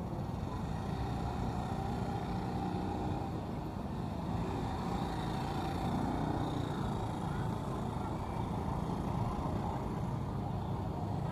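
Steady outdoor city ambience: a low, even rumble like traffic, with faint distant voices mixed in.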